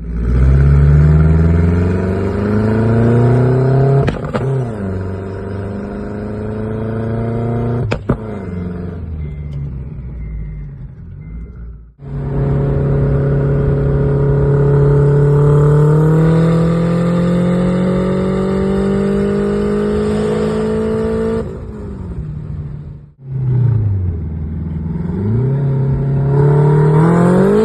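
Turbocharged car engine accelerating hard through the gears. In each gear the pitch rises, then drops abruptly at each upshift, which is cut quickly by the ignition shift cut. One long pull climbs steadily before the sound breaks off.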